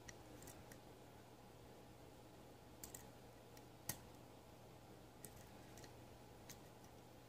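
Faint, scattered clicks of a hook pick and tension wrench working the pin stack of a custom-pinned Avis Bufo lock, the loudest about four seconds in, over near silence.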